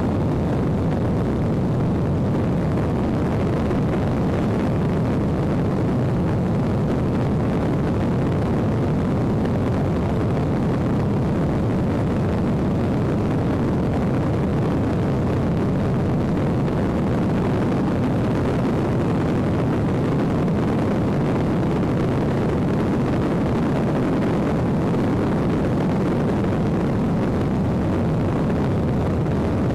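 Airplane in flight, heard from inside the cabin: a steady, unbroken drone of engine and rushing air that stays at the same level throughout.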